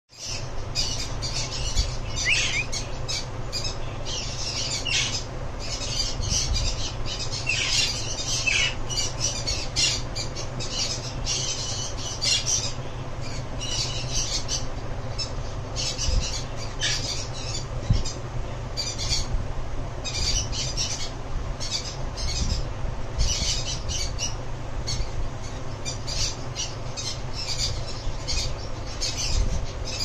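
Sun conure squawking: short, harsh calls repeated over and over, about one or two a second.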